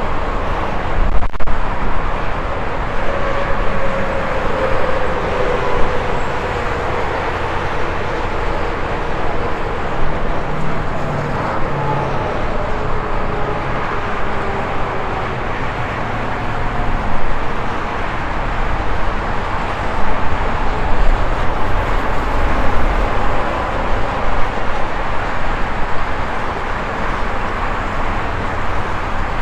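Steady highway traffic: the continuous rumble and tyre hiss of cars and trucks passing, with the whine of several passing vehicles falling in pitch as they go by.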